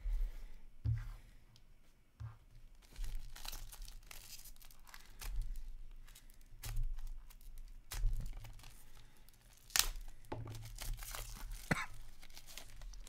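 Foil wrapper of a trading-card pack being torn open and crinkled by hand in irregular rips and rustles, with dull bumps of handling. Cards are slid and handled near the end.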